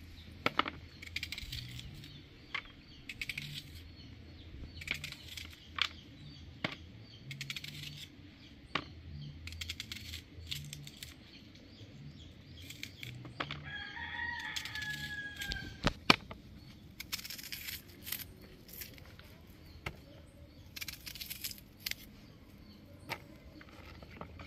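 Knife slicing an onion held in the hand, a run of short sharp clicks as the blade cuts through. A little past halfway, a rooster crows once for about a second and a half.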